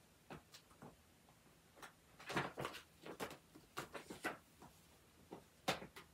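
Paper rustling and light taps in short, scattered bursts as a folded sewing pattern is handled and slotted into a small pattern stand.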